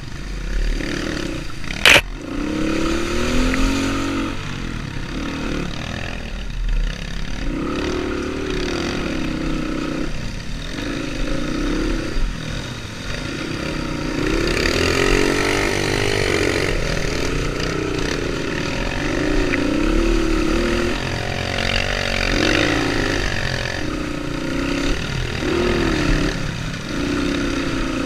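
Enduro motorcycle engine heard from on board while riding off-road, the revs rising and falling again and again with throttle and gear changes. A sharp knock about two seconds in.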